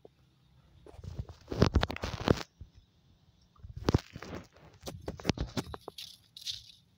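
Scuffing and crunching on gritty dirt ground in two bouts, one starting about a second in and a second from about four seconds in.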